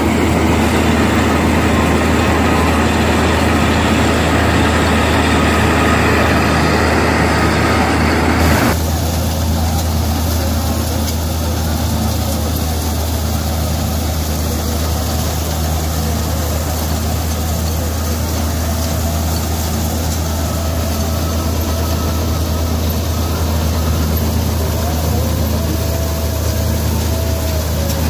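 Combine harvester running steadily while cutting wheat: a continuous low engine drone with the noise of its working machinery. About eight seconds in the sound changes abruptly and the higher part drops away.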